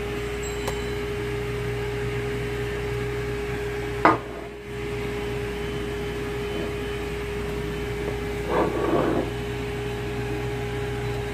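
A steady low hum, with a single sharp knock about four seconds in as the cast-iron rotary engine rotor is handled on the concrete floor.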